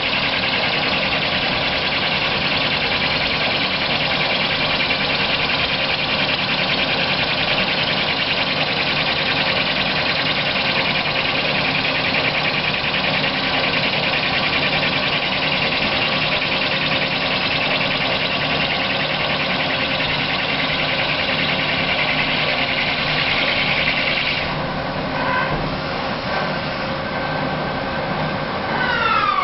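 CNC lathe running while a carbide-insert boring bar cuts a Teflon cylinder: a steady machine hum under a hissing cut. About 25 seconds in, the cutting hiss drops away as the pass ends. At the very end the spindle starts to slow, with a falling whine.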